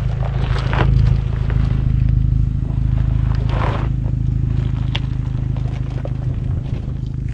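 Off-road 4x4 engine running steadily at low speed, with stones and gravel crunching and scraping under the tyres on a rough dirt track.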